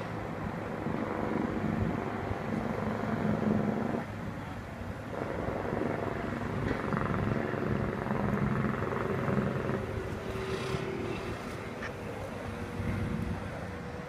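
Outboard motor of a small work boat running at low speed, a steady engine drone whose pitch wavers a little.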